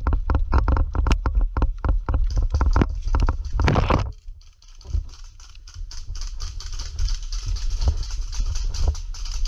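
Quick footsteps, about five a second, each one a heavy thump on the body-worn camera. About four seconds in they end with a loud brushing rush. After that come softer rustling and shuffling through the grass.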